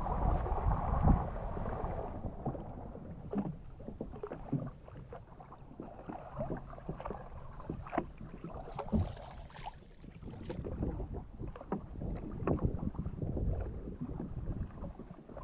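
Water splashing and sloshing around a small wooden outrigger canoe, with irregular splashes and knocks against the hull. Wind rushes on the microphone for the first couple of seconds.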